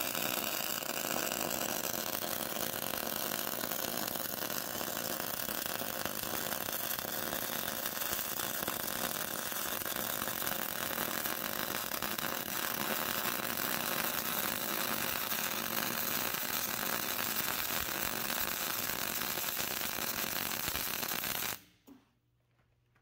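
Welding arc laying a weld bead, fusing a steel leg onto the steel pipe body of a wood stove: a steady crackling that cuts off suddenly near the end when the arc is broken.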